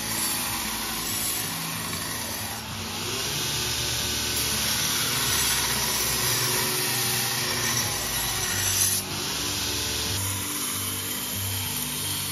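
Belt grinder running with a steel knife blade pressed against the moving belt: a steady grinding hiss that drops sharply about nine seconds in, then carries on. Background music with a repeating bass line plays underneath.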